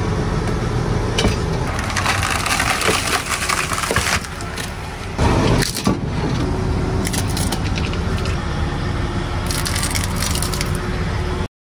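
Steel train wheels rolling slowly along the rail with a steady low rumble, crushing objects laid on the rail with repeated cracks and crackling snaps. The sound cuts off abruptly near the end.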